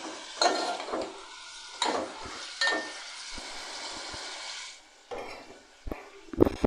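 Mutton pieces sizzling in hot oil in a metal pot as a steel ladle stirs and scrapes against the pot a few times; the sizzle fades just before five seconds in. A few sharp knocks follow near the end.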